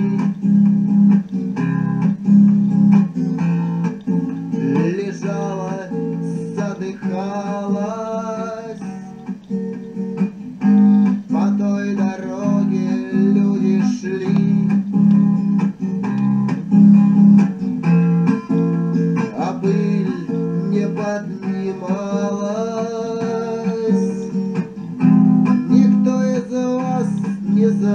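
Recorded song with strummed acoustic guitar, played from a cassette through a portable stereo's speakers.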